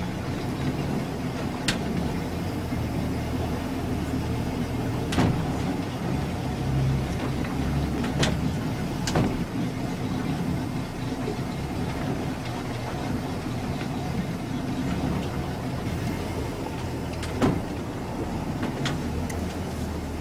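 Boat engine running steadily at low speed, with several sharp knocks and clicks scattered through it.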